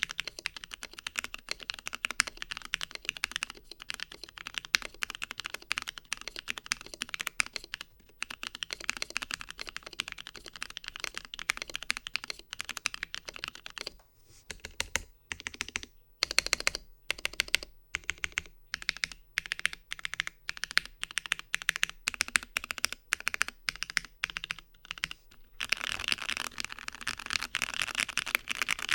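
Fast typing on a plateless OrangeBoy Ergo mechanical keyboard with stock JWK Black linear switches, beige PBT keycaps and a tape/Tempest mod. The keystrokes come in quick runs, slow to separate presses about halfway through, then pick up into dense typing near the end.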